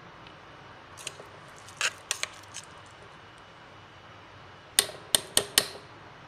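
Metal spoon clinking against the inside of a steel mixer-grinder jar while scooping out ground carrot paste. A few scattered clinks come first, then four quick, sharp taps near the end.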